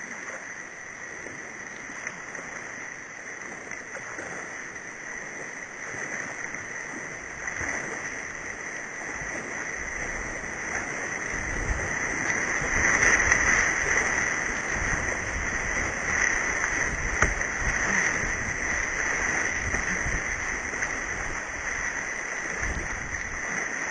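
Whitewater rapids of a river in very high flood rushing, with water splashing against the bow of a kayak running through them. The rush grows louder about halfway through, with low knocks and splashes as waves break over the bow.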